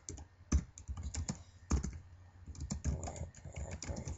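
Keys typed on a computer keyboard, an irregular run of keystroke clicks with a few louder strikes, as a folder name is entered.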